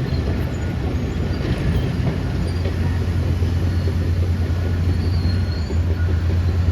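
Heavy diesel earthmoving machinery running steadily: a constant low engine drone with a rattling clatter over it.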